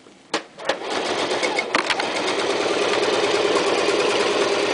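Toyota Super Jeans J34 sewing machine stitching through about eight layers of leather. Two clicks near the start, then the machine runs steadily from about a second in.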